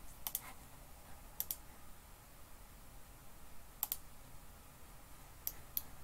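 Computer mouse button clicking four times, each click a quick pair of sharp ticks, over a faint low hum.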